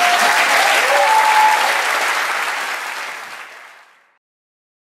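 Audience applauding, fading away to silence about four seconds in.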